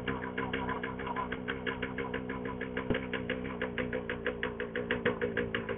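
Motorcycle engine running at low revs, an even rapid pulse of about ten beats a second.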